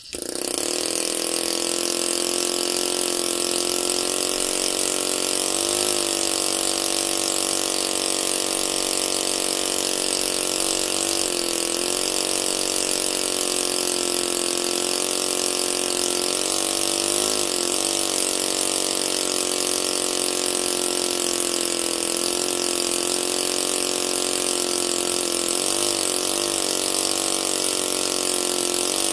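Micro piston air engine running at high speed on compressed air from a beer-can air tank: a steady buzzing hum over a loud hiss of air. It starts suddenly and holds an even pitch, with a few brief dips in speed.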